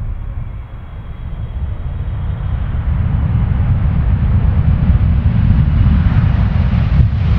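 Low rumble of a Boeing 777-300's jet engines as the airliner rolls down the runway after landing, growing steadily louder, with a rising hiss in the last couple of seconds as it nears.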